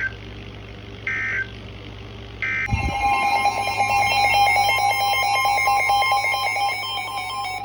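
Two short data bursts of an Emergency Alert System end-of-message code, about a second apart. About three seconds in comes a low thump, then a loud, steady alert tone of several pitches with a fast pulsing under it.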